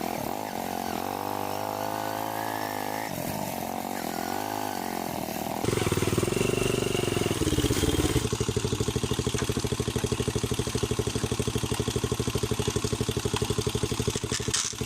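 Motorcycle engine running, its pitch rising and falling with the throttle for the first six seconds; then, abruptly, a louder steady, evenly pulsing engine note like an idle.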